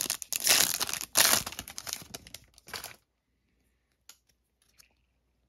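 The wrapper of a Panini Prizm football trading-card pack being torn open and crinkled, loud and crackly for about three seconds. After that it drops to near quiet, with a few faint ticks as the cards are handled.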